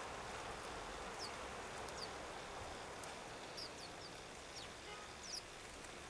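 Small garden birds at feeders giving short, high, falling chirps, singly or in quick pairs, several times over a steady background hiss.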